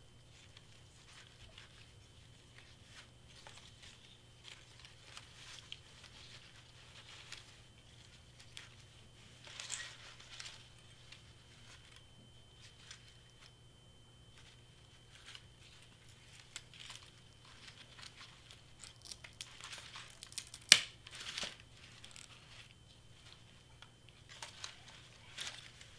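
Cardstock paper leaves and a satin ribbon bow rustling and crinkling as hands handle and adjust them, in scattered soft bursts, with one sharp click about twenty seconds in.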